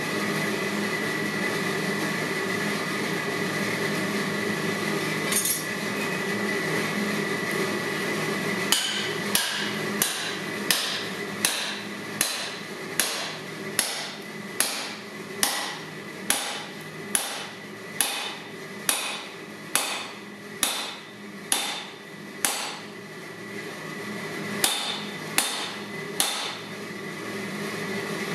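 Steady hammer blows on a steel drift driven through the eye of a hot forged hammer head, about three strikes every two seconds, each with a short metallic ring. They start about a third of the way in, after a steady rushing hum, pause briefly, then resume near the end.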